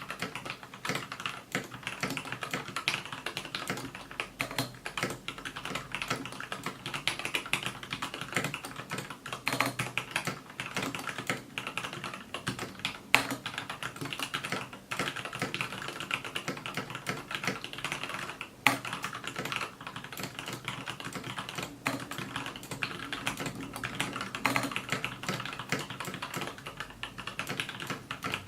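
Steady, fast typing on a TADA68 mechanical keyboard with lubed Gateron Yellow linear switches and Vortex PBT OEM-profile keycaps. A rapid patter of key clacks, with a couple of louder single strikes about halfway through.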